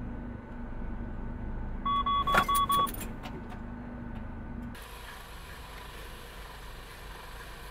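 Truck cab warning alert: a quick series of about five identical high beeps over a steady low cab hum, with a sharp knock among them, as the collision warning fires on a cyclist ahead. About two-thirds through, the sound changes abruptly to an even outdoor hiss.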